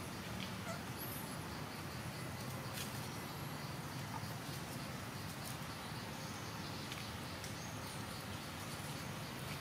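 Forest-floor ambience: a steady low background hum with faint, short high-pitched bird chirps now and then and a few soft clicks.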